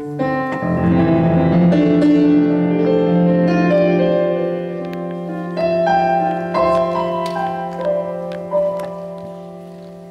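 Live keyboard intro to a song: chords and a melody played with a piano sound, the notes held and ringing over one another, growing softer over the last few seconds.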